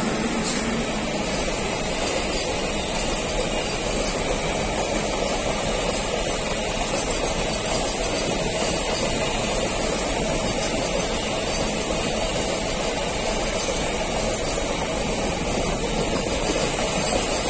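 Container freight train passing close by at speed behind an electric locomotive: a steady, loud rumble of the wagons' wheels running on the rails.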